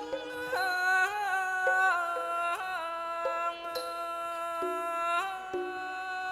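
Thai classical piphat ensemble music: a held melody line that slides and wavers between notes, over short, lower struck notes from the ensemble.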